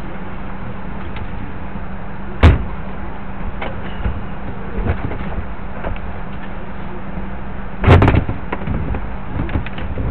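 Overhead luggage bins on an airliner being loaded and banged shut: one sharp bang about two and a half seconds in, and a rattling cluster of bangs about eight seconds in. Underneath is the steady hum of the cabin's air system.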